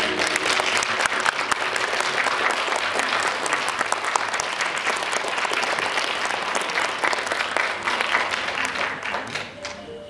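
Audience applauding, a dense steady clapping that fades away near the end.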